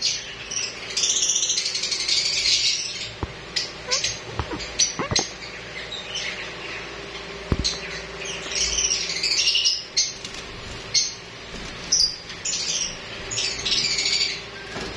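Several caged lovebirds chirping in a busy, high chatter, with a few sharp knocks and clicks partway through.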